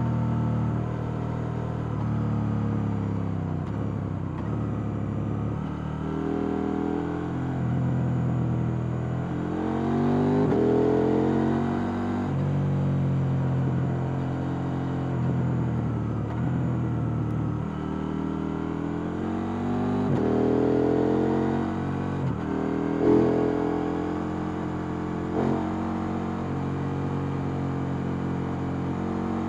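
KTM 890 Duke R's parallel-twin engine with its stock exhaust, heard on board while riding: the engine note climbs repeatedly under acceleration and falls back off the throttle, with a brief sharp spike about three quarters of the way through.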